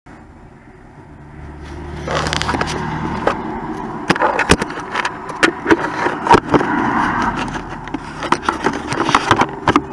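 Irregular knocks and scrapes on a radio-controlled FPV boat's wooden hull, heard close up from inside by its onboard camera as the boat is handled. They come over a rushing noise that builds during the first two seconds.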